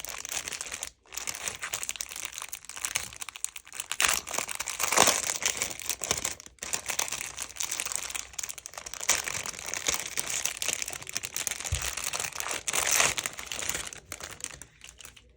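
Continuous crinkling and rustling of items being handled, with louder swells and two short breaks.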